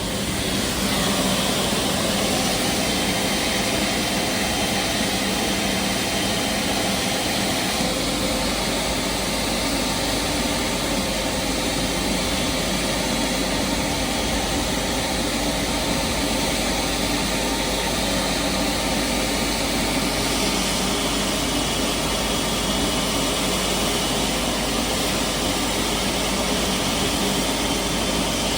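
Jet turbines running steadily during a Boeing 777F's GE90-110 engine start with a jet air starter: a loud, even rush with a thin high whine. The level steps up slightly right at the start and then holds.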